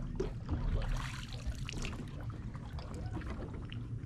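Water splashing and trickling, strongest between about half a second and two seconds in, over a steady low rumble of wind on the microphone.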